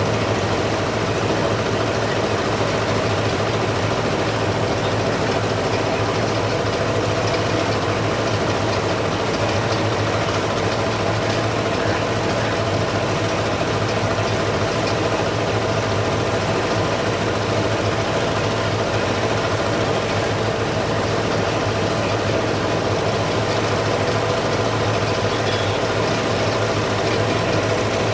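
A large engine idling steadily, a constant drone with a low hum and a steady mid-pitched tone over it.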